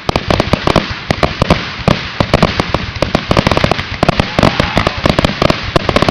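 Fireworks grand finale: a rapid, unbroken barrage of shell bursts, many sharp reports a second, overlapping one another.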